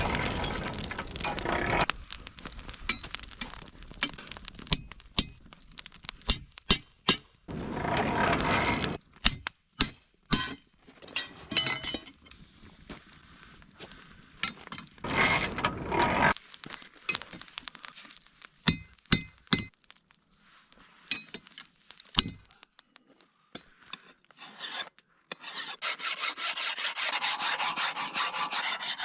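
Scattered clinks, knocks and short scrapes of metal and gritty material being handled. Near the end comes a steady, rapid rasping: a hand file worked back and forth on the steel knife blank.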